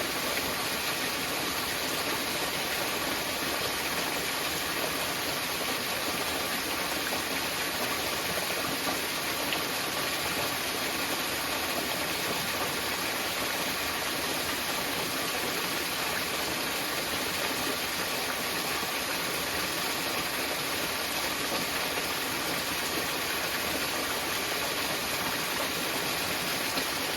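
Small mountain waterfall splashing, a steady rushing hiss of falling water.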